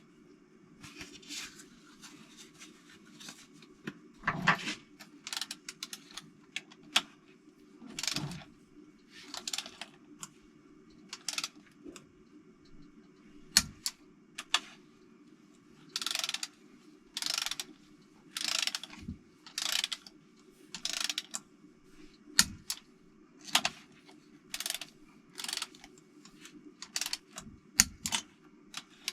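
Ratchet wrench clicking in short runs, roughly one run a second toward the end, as bolts on a Toyota 4A-GE engine are tightened in sequence, over a steady low hum.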